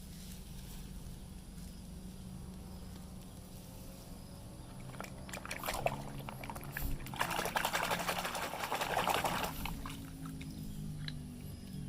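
Water pouring and splashing over a muddy toy truck as it is rinsed clean, starting about five seconds in and stopping near ten seconds, over a faint steady low hum.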